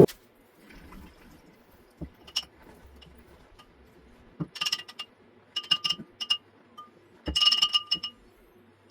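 Steel pieces being handled and knocked together, giving light clinks that ring briefly at a few fixed pitches. There is a single clink about two seconds in, then bursts of several clinks around the middle and near the end.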